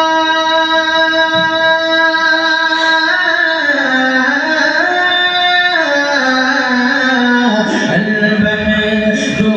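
A man singing a naat solo into a microphone: long held, ornamented notes that step up and down in pitch and slide lower near the end.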